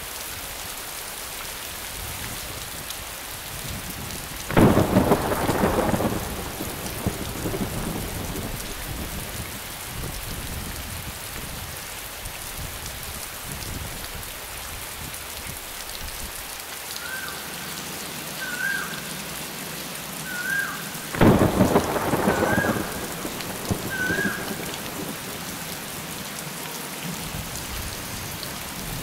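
Steady rain, with two loud claps of thunder, the first about four seconds in and the second about twenty-one seconds in. Five short, evenly spaced chirps sound in the stretch around the second thunderclap.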